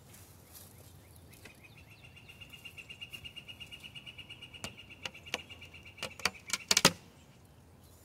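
Wooden hive cover being worked loose and lifted off a Layens beehive: a few sharp wooden knocks and clicks, the loudest cluster near the end. A steady high-pitched trill runs under them for several seconds.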